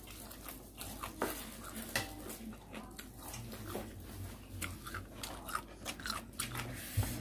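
A person chewing a mouthful of kimbap close to the microphone: soft, irregular mouth clicks and small chewing noises.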